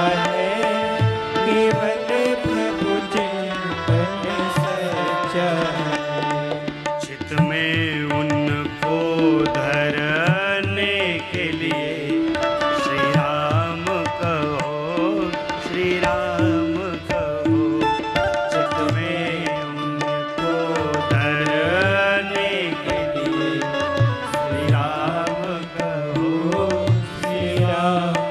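Instrumental interlude of a Hindi bhajan: hand drums keep a steady rhythm while a melodic instrument plays a bending, ornamented tune.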